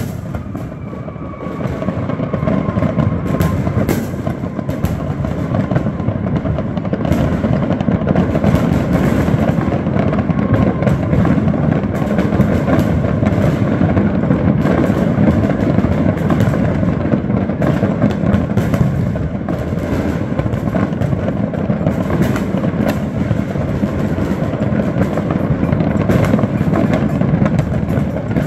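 Dense neighbourhood New Year fireworks: many aerial shells and firecrackers banging and crackling at once, blending into a continuous rumble.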